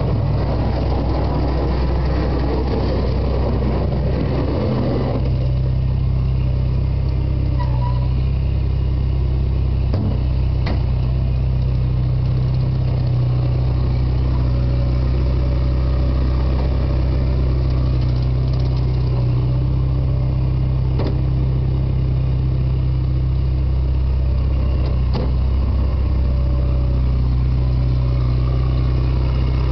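Steady low engine hum throughout. For the first five seconds there is louder mechanical noise from an ASV tracked skid steer working close by, which drops away about five seconds in as the machine moves off. A few faint clicks follow.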